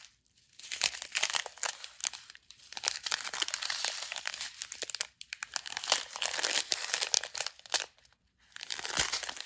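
Small plastic bags of diamond-painting drills being handled and crinkled, in four bouts of crackling separated by short pauses.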